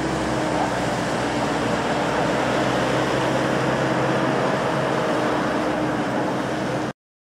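Boeing 737-700 Business Jet's CFM56 jet engines running at taxi idle: a steady rushing noise with a faint low hum. It cuts off abruptly about seven seconds in.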